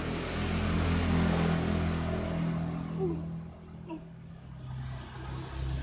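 A motor vehicle's engine running steadily as it goes by, loudest in the first second or two and fading about three seconds in, with another engine rising again near the end.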